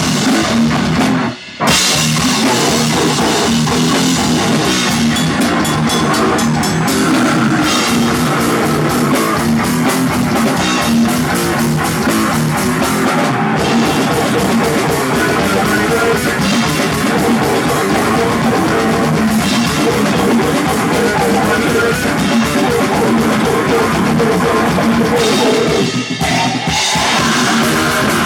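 Metal band playing live: distorted electric guitars over a driving drum kit. There is a sharp, brief stop about a second and a half in, then the playing carries on steadily.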